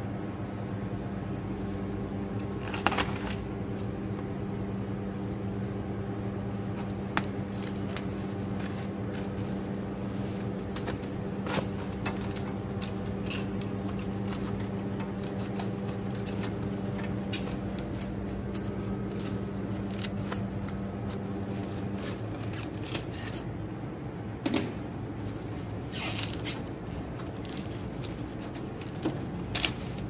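Scattered light metallic clicks and clinks of a screwdriver and fittings being handled while wiring connectors are worked loose inside an air conditioner's indoor unit, over a steady hum that stops about 22 seconds in.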